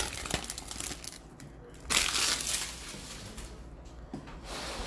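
Trading cards and their foil pack wrapper being handled, rustling and crinkling in short bursts, the loudest about two seconds in.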